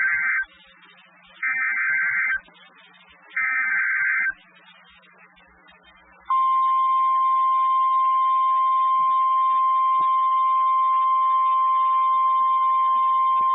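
Three roughly one-second bursts of Emergency Alert System SAME header data, a harsh digital warble, from NOAA Weather Radio. After a short pause, the steady 1050 Hz Weather Radio alert tone sounds for about nine seconds, signalling that a warning follows.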